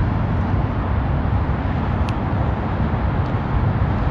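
Steady low rumble with a hiss above it, and one faint click about two seconds in.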